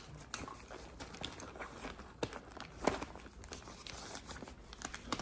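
Faint rustling and crinkling with scattered small clicks and knocks as toiletry bottles are handled and packed into a toiletry bag.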